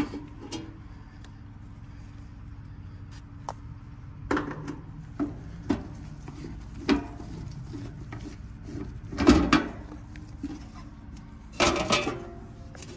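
Screws being backed out and the sheet-metal service panel of an outdoor AC condenser unit being worked loose and lifted off: scattered clicks, scrapes and metal knocks, with the loudest clatter about two thirds of the way through and more near the end, over a steady low hum.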